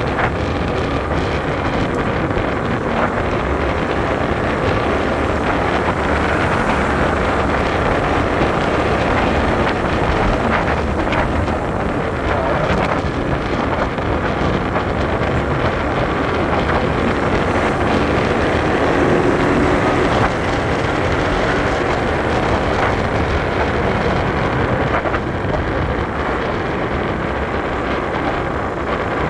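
Steady wind rushing over the microphone, mixed with the running of a Honda scooter's small engine and tyre noise, cruising at a steady low speed.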